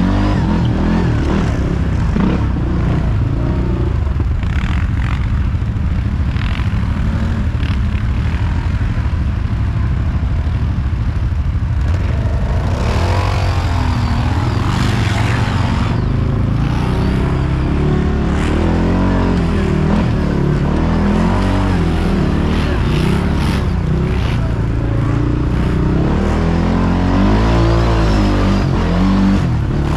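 ATV (quad bike) engine running under load, its pitch rising and falling as the throttle goes on and off while it churns through deep mud ruts.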